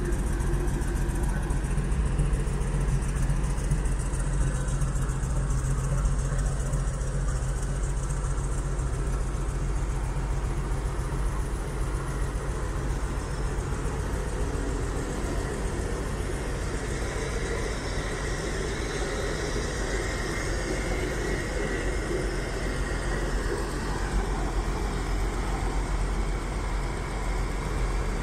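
1951 Dodge M37's flathead six-cylinder engine idling steadily.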